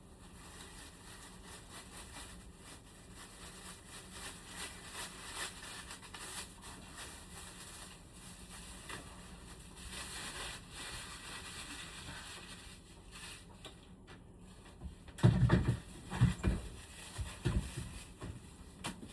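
Faint, uneven rustling and scraping of handling work, then several loud, dull thumps in quick succession near the end.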